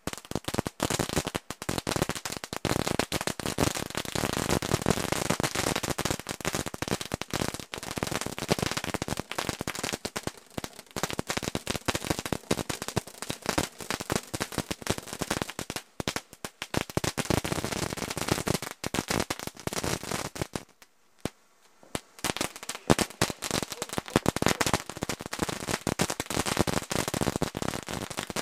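Fireworks going off in a rapid, dense string of bangs and crackles that barely stops, with a brief lull about three-quarters of the way through before the popping resumes.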